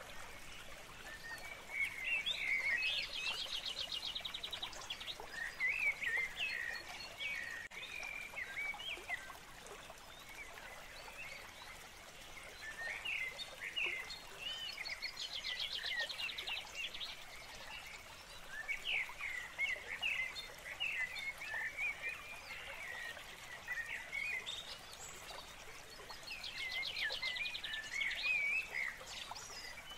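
Birds chirping and calling over a faint background hiss, with a rapid trill that comes back about every twelve seconds.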